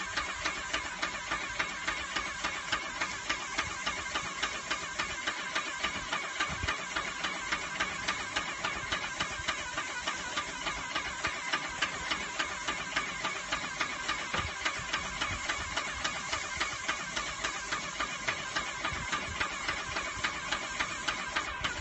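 Airless paint sprayer running steadily, its pump pulsing about twice a second as the gun sprays paint.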